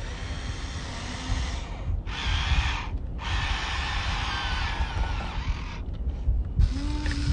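Small electric gear motors of a radio-controlled toy construction vehicle whirring in three stretches with short stops between them, over a low rumble.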